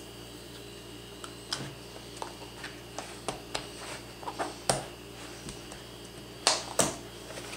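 Small clicks, ticks and rubbery rustles of hands working a rubber lens outsert over the lens of an M17 gas mask and its cloth chemical protection hood, with a few louder rustles about two-thirds of the way through and near the end.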